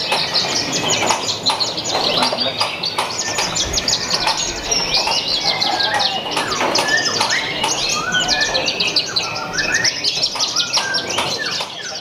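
Caged Horsfield's bushlarks (branjangan) singing: a dense, unbroken stream of quick chirps, trills and short rising and falling whistles.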